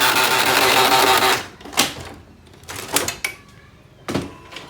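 Canon MF3010 laser printer starting up with its toner cartridge removed: a loud whirring clatter of motor and gears for about a second and a half, then a few separate clicks and clunks. Without the cartridge this start-up is the printer's normal sound, free of the noise that appears once the cartridge is fitted.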